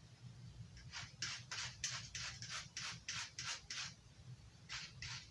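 Knife blade drawn in quick, even strokes across a handheld sharpener, about three scraping strokes a second, with a short pause before two more near the end. A steady low hum runs underneath.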